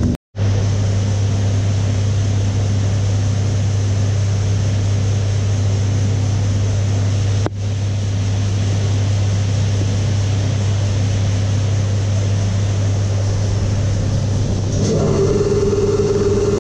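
Keeway KLight 202's single-cylinder carburetted engine running steadily at idle on a dyno while its carburettor is adjusted. The note shifts slightly near the end.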